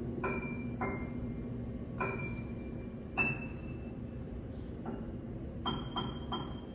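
Quiet ambient music: sparse, high, bell-like struck notes ringing out and fading over a low steady drone, with a quicker run of three notes near the end.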